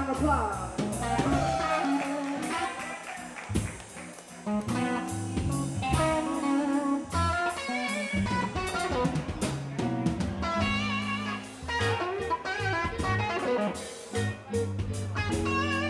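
Blues band playing live: electric guitar picking out short bending lead phrases over bass and drums.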